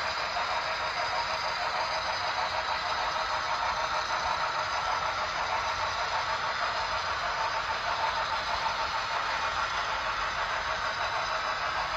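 HO scale model train running along the layout track: a steady, even mechanical rattle and whir of small wheels and motor on the rails.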